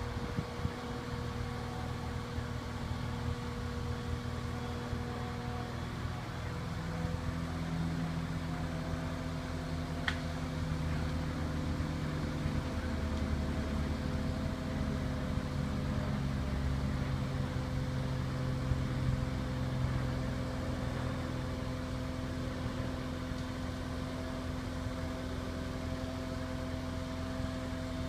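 Heavy diesel engine of a large mobile crane running steadily, its low note shifting a few times as the load changes. A brief click about ten seconds in.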